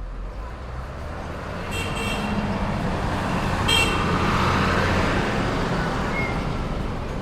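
Road traffic on a city street: a vehicle passes close by, its rumble swelling through the middle and easing off near the end. Two short high-pitched tones sound about two seconds and nearly four seconds in.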